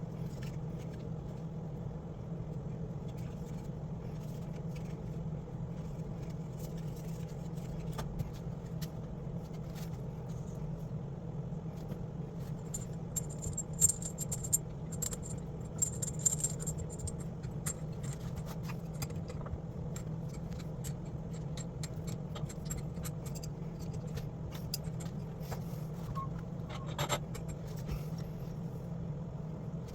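Small metal parts clinking, jingling and scraping in scattered bursts over a steady low hum, with the busiest jingling about halfway through.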